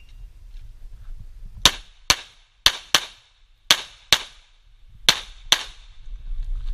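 Pistol shots fired in four quick pairs, eight shots in about four seconds.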